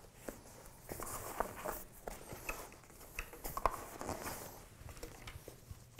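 Soft handling noise of a webbing harness strap being fed through a plastic cam lock under a seat: scattered light clicks and rustling, busiest in the middle, with one sharper click a little past halfway.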